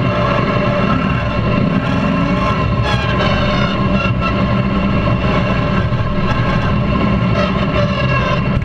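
Mud-modified lawn tractor's small gas engine running steadily as it drives along a trail, heard close up from behind the driver, its pitch wavering slightly with the throttle.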